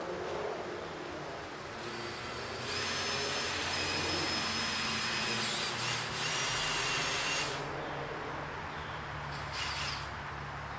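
Cordless drill running steadily as it bores a hole into a tree, for about five seconds starting about three seconds in, then a short burst of the drill near the end.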